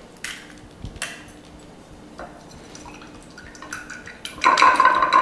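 A few faint taps, then about four and a half seconds in a fork starts whisking a raw egg in a glass bowl: quick, continuous clinking of metal on glass.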